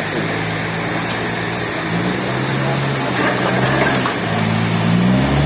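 Engine running steadily, its low hum dipping and rising slightly in pitch a couple of times.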